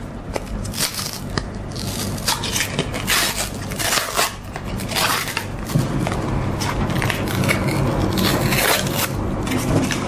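Ice cream wrapper crinkling and tearing as it is peeled off, an uneven run of crackles. A low steady hum joins about six seconds in.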